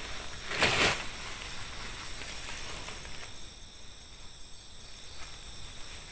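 Nylon tent fabric rustling and swishing as it is shaken out and laid on the grass, loudest about half a second in. Insects call steadily in the background, clearer in the second half.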